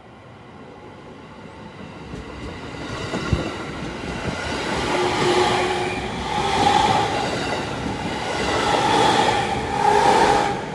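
JR East 701-series electric train approaching and running past close by, its wheels clattering over the rail joints, with a steady hum mixed in. It grows steadily louder and drops off sharply as the last car goes by near the end.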